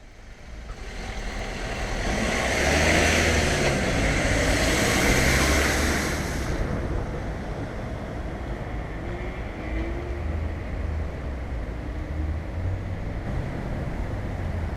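Road traffic: a vehicle passes with a loud rush of tyre and engine noise in the first few seconds, then a steady lower traffic rumble.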